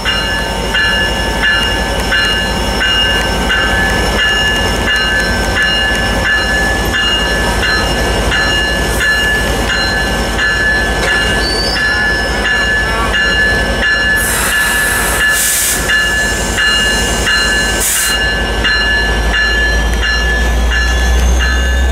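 Diesel locomotive bell ringing steadily, about one and a half strikes a second, over the low rumble of the idling engine as the locomotive creeps up to couple onto a passenger car. Short bursts of air hiss come twice, past the middle.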